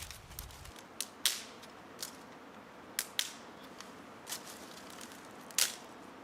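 Wood campfire crackling: irregular sharp pops and snaps, roughly one a second, over a faint hiss, the loudest about a second in and near the end.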